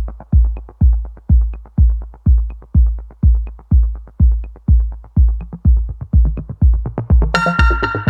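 Electronic background music with a steady kick drum, about two beats a second; brighter synth chords come in about seven seconds in.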